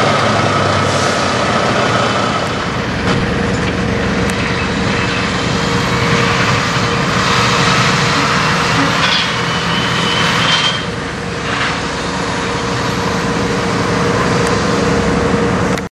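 Peterbilt 389 semi truck with a loaded car-hauler trailer driving off, its diesel engine running steadily.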